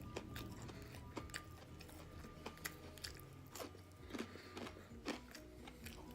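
Close-miked chewing of fried chicken strips: irregular soft crunches and mouth smacks, a few louder bites past the middle.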